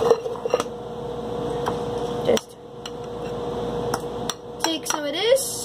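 A metal utensil clinks and scrapes in a ceramic bowl as ice cream is mixed, with a few scattered sharp clinks. A person's voice sounds briefly near the end.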